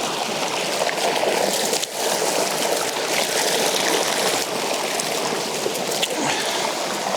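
River water flowing steadily, with a few faint short knocks.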